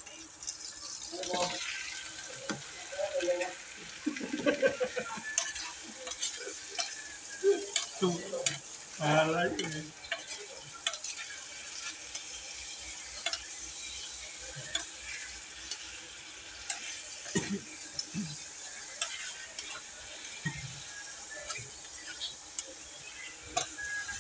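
Raw chicken pieces frying in hot oil in a stainless steel pot, sizzling steadily, while a metal spoon stirs them and clicks and scrapes against the pot. The stirring clatter is louder and busier in the first ten seconds as the chicken goes in and is turned over.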